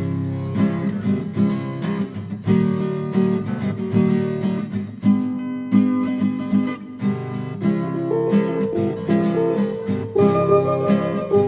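Acoustic guitar music: strummed and plucked chords, a new chord struck about every half second to second.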